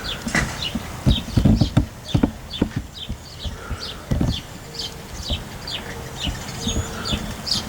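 Irregular knocking and tapping on the plastic bag wrapped around the camera as rain and gusting wind hit it, some knocks much louder than others.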